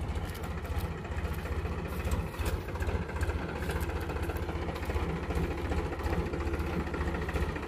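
Powertrac Euro 50 tractor's three-cylinder diesel engine running steadily at low revs as the tractor drives slowly past, with an even, rapid low beat.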